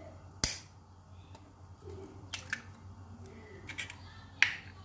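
Eggshells knocked sharply to crack them: a loud crack about half a second in, a few lighter taps in the middle, and another loud crack near the end.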